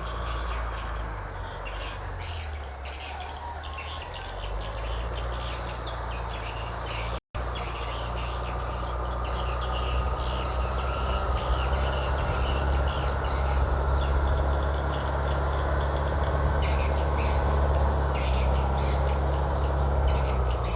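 Engine of a large paddy-field machine running steadily, a low hum that grows louder after about ten seconds, with birds chirping over it. The sound drops out completely for an instant about seven seconds in.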